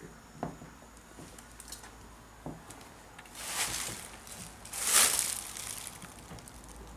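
Footsteps and shuffling on a gritty, debris-strewn floor: a few sharp single steps, then two longer scuffing crunches about three and a half and five seconds in, the second the loudest.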